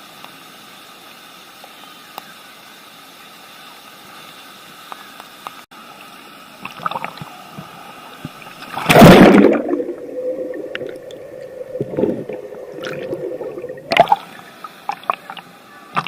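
Water splashing loudly about nine seconds in, followed by about five seconds of muffled gurgling water with a steady low hum, the sound of being under the surface. A second splash near the end marks coming back up into open air.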